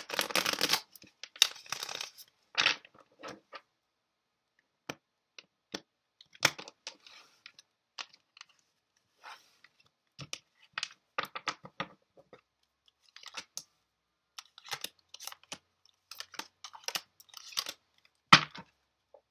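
A deck of tarot cards being shuffled and handled: a dense rustle of cards in the first second or so, then scattered flicks and taps as cards are worked through and set down.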